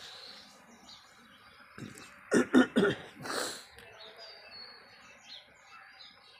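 A man clearing his throat and giving a short cough, about two to three seconds in, with faint bird chirps behind.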